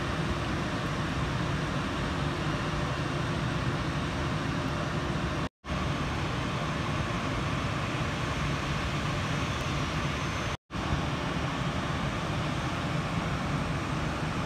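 Airbus A320's jet engines running at taxi power: a steady rumble and hiss. The sound drops out briefly twice, about five and ten seconds in.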